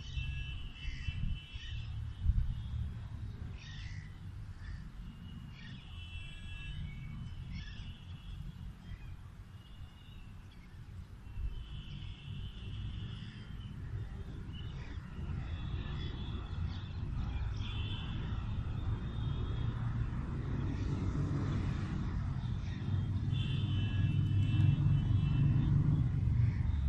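Outdoor ambience: a steady low rumble that grows louder toward the end, with short, high-pitched animal calls every few seconds.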